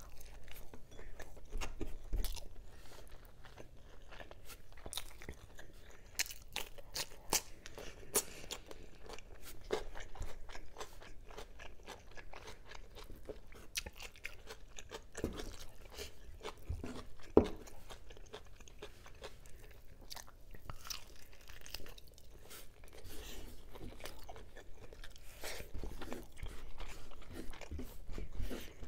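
Close-miked eating of adobo pork ribs by hand: chewing and biting with many short, sharp crunches and clicks, the loudest about two-thirds of the way through.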